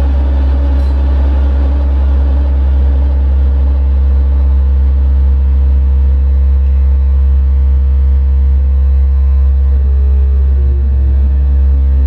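Live experimental electronics: a loud, steady low drone with layered sustained tones above it, and several falling pitch glides in the last couple of seconds.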